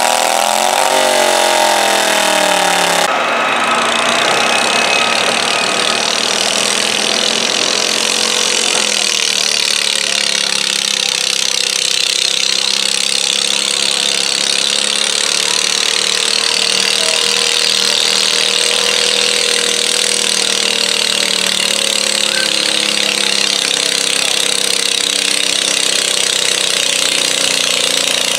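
Garden tractor engines running hard in a tractor pull. In the first three seconds a small engine's pitch rises and falls under load. The sound then changes suddenly to a steady engine with a slowly wavering pitch.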